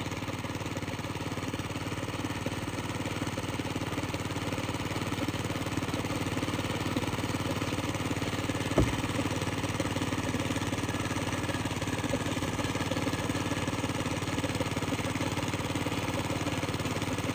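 Small gasoline engine driving a homemade air compressor, running steadily to feed breathing air through a hose to a diver underwater. A single brief knock sounds about nine seconds in.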